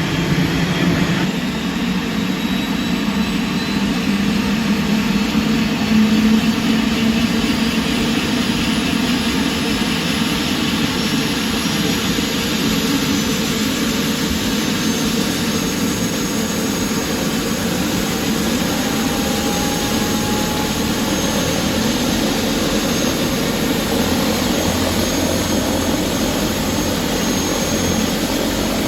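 Helicopter engine and rotor running loud and steady, with a faint high whine over the rotor noise.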